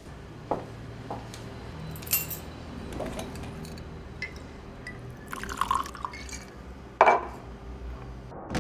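Liquor poured from a glass bottle into a glass tumbler on a stone counter, with glass clinks and knocks as the bottle and glass are handled. The pour comes about five and a half seconds in, and the loudest knock about seven seconds in. A low steady hum runs underneath.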